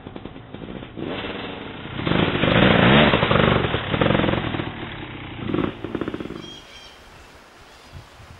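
Dirt bike engine revving up and down, loudest about two to five seconds in, then dropping away after about six seconds to a quiet outdoor background.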